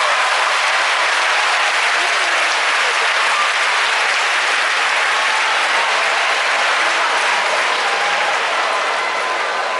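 Large crowd applauding steadily, the clapping easing off slightly near the end.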